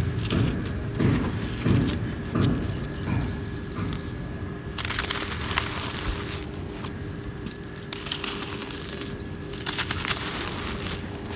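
Dry, crumbly cement clumps being crushed and crumbled between bare hands, a gritty crunching and crackling as powder and grit pour out. There are a few dull knocks in the first two or three seconds.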